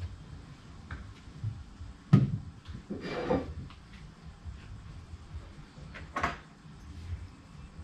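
Handling noise from work on an engine and its mounts inside a boat hull: a sharp knock about two seconds in, the loudest sound, a scraping rustle just after, and another clunk about six seconds in.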